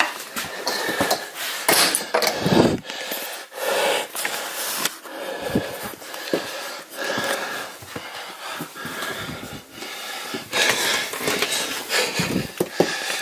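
A person breathing hard close to the microphone, in uneven heavy breaths, with rustling and handling noise.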